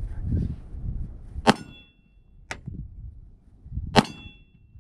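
Three gunshots, the second about a second after the first and the third about a second and a half after that. The first and last are each followed by the brief ring of a struck steel plate target. Wind rumbles on the microphone in the first second or so.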